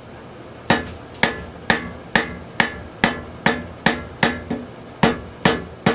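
Blacksmith's hammer striking hot iron on an anvil: about a dozen steady blows, roughly two a second, each with a short metallic ring. This is the hammering of a forge weld, joining a bar folded back on itself.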